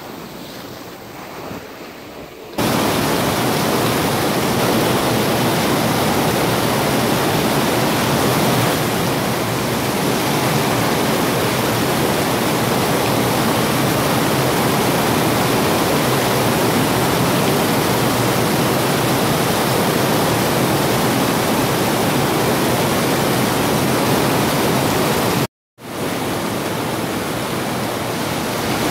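Small waves washing up a sand beach, then a sudden change to heavy tropical rain pouring steadily onto the sea and sand, a loud, dense, even hiss. The rain briefly cuts out near the end and resumes a little softer.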